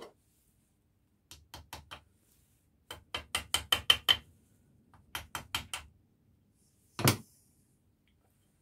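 Ratchet wrench on the crankshaft nut clicking in three short quick runs as the engine is turned over by hand, then one louder knock about seven seconds in.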